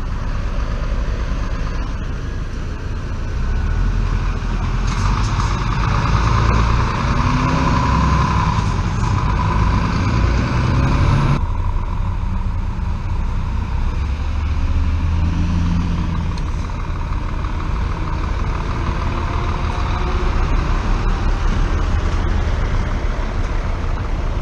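Scania S500 tractor-trailer's 13-litre six-cylinder diesel running as the truck drives along and pulls in. The sound changes abruptly about halfway through.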